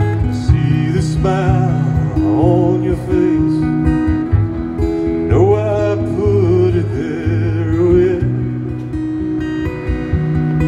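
Acoustic guitar strummed in a slow song, with a man singing over it in two phrases, the first starting about a second in and the second about halfway through.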